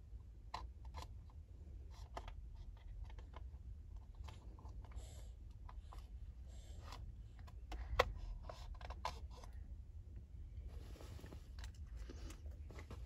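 Low, steady hum inside a stationary car's cabin, with scattered light clicks and taps and one sharper knock about eight seconds in.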